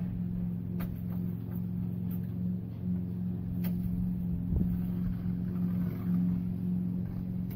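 A steady low mechanical hum holds through, with a few faint clicks and a soft thump about four and a half seconds in.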